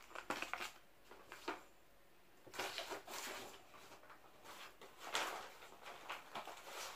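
Paper and plastic packets rustling as they are handled and put down, with a few light clicks and knocks, while the next piece of mail is fetched.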